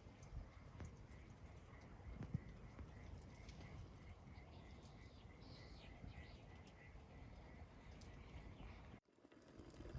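Near silence: faint low rumble with scattered soft clicks and a faint high chirp repeating about three times a second, cut off abruptly about nine seconds in.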